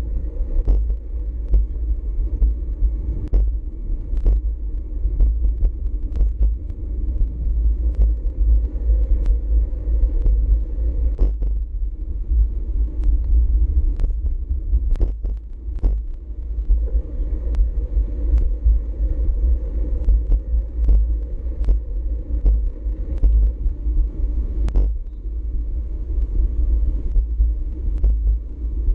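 Wind buffeting a GoPro Hero4 Session's microphone while riding a bicycle: a steady, loud low rumble, with scattered sharp clicks and rattles from the bike.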